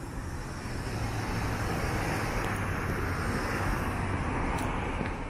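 Road traffic: cars driving through a city intersection, a steady wash of tyre and engine noise.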